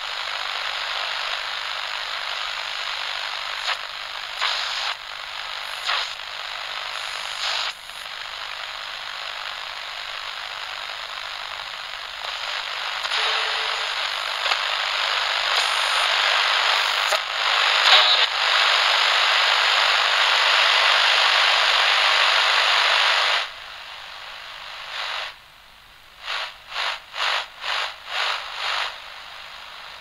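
Radio static: a steady hiss with crackles and pops. It grows louder toward the middle, then cuts out suddenly about three-quarters of the way through. Near the end it breaks into rhythmic pulses, about two a second.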